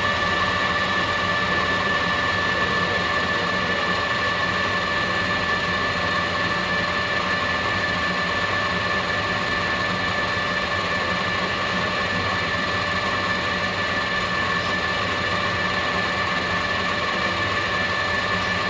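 Metal lathe running steadily: a constant machine noise with a steady whine of several fixed tones from the spindle drive.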